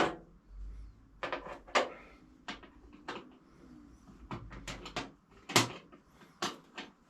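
Scattered knocks and clinks of metal tools and parts being handled while dismantling an old lathe, with a few louder sharp knocks.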